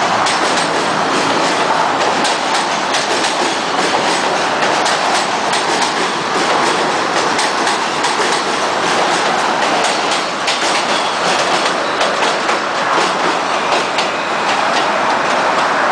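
R160 subway train running past on steel bridge track: a steady loud rumble with rapid clicking of wheels over rail joints.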